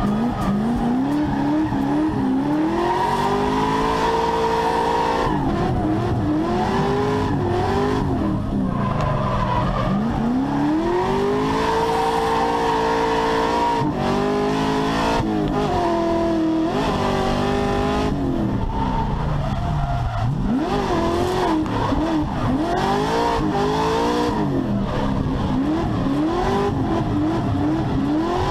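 Drift car's engine heard from inside the cabin, revving up and dropping back again and again as the car slides through corners, with tyres squealing.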